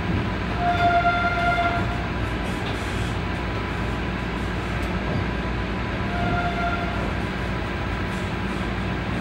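A train horn sounds twice, a longer note about half a second in and a shorter one about six seconds in, over the steady rumble inside a Vande Bharat Express chair car. It is the departure signal for the train leaving on schedule.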